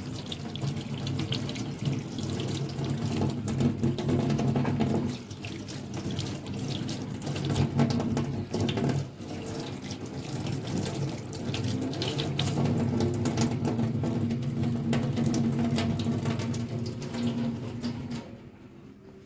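Water running from a tap into a sink, with splashing and small knocks as things are washed under it; it stops near the end.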